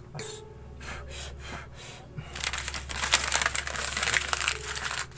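A sheet of paper being folded and crumpled by hand, crinkling loudly from about two seconds in. Before that, a few light clicks as the pencils are picked up.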